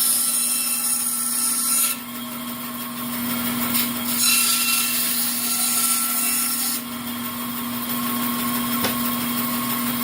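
Bandsaw running with a steady hum while its blade cuts through a wooden board. The cutting hiss comes in two spells, for the first couple of seconds and again from about four to seven seconds in.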